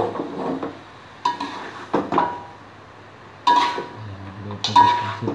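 A spatula scraping through chicken in a wok and knocking against the pan. There are about six sharp clanks, each ringing briefly.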